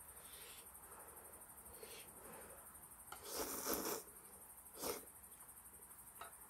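A person slurping ramen noodles: one loud slurp lasting nearly a second about halfway through, then a shorter one a second later.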